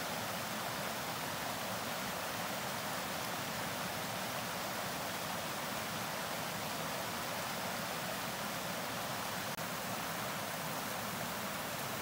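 Steady rush of a shallow forest creek running over stones and small rapids, an even wash of water sound with no other events.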